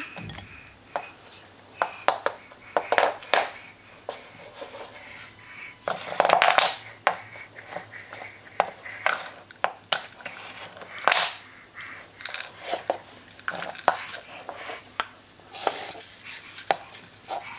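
Wooden colour sound blocks being stacked, tipped over and knocked together on a wooden floor: irregular sharp wooden clacks and knocks. A longer, busier stretch of clattering comes about six seconds in.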